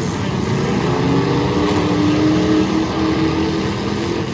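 Demolition derby cars' engines running loud and revving, one engine's pitch climbing about a second in and then holding high.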